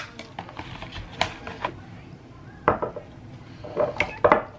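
A glass reed-diffuser bottle and its cardboard box being handled on a stone countertop, with the bottle's metal cap being twisted off: scattered light knocks and clicks, the sharpest about two and a half seconds in and a cluster near the end.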